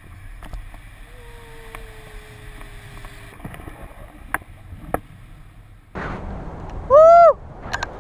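Wind rumbling on an action camera's microphone in flight under a tandem paraglider, growing much louder about six seconds in. Near seven seconds a flyer gives one short, loud shout.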